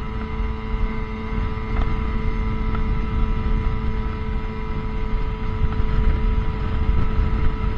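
Personal watercraft engine running at a steady cruising speed: an even hum with a held tone over a low rumble of wind and water.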